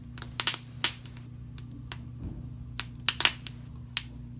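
Red slime squeezed through a metal press, popping and crackling in about a dozen sharp, irregular pops, bunched at the start and again near the end. A steady low hum runs underneath.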